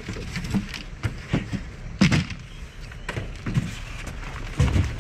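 Styrofoam cooler boxes being shifted and feet stepping about in a pickup truck bed: irregular knocks and low thumps, the loudest about two seconds in and again near the end.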